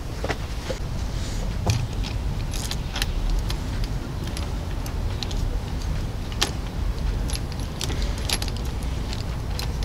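Irregular metallic clicks and jangling from a folding multi-tool as one of its hex keys is turned to tighten a bolt in the handlebar end, its other folded keys rattling against each other. A steady low rumble runs underneath.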